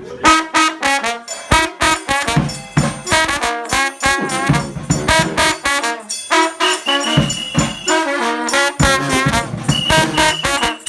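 New Orleans brass band playing an upbeat tune, trumpets and trombones over tuba with steady drum hits. A high held note sounds twice in the second half.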